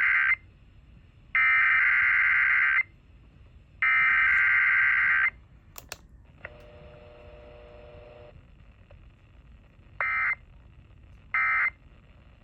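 Emergency Alert System SAME data tones: three long, buzzy digital bursts (the header), then after a faint pause two short bursts of the end-of-message code.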